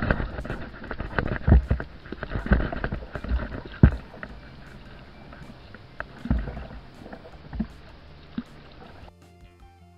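A small cardboard rowboat being rowed: oars splashing and dipping in the water, with irregular low thumps. Music starts abruptly about a second before the end.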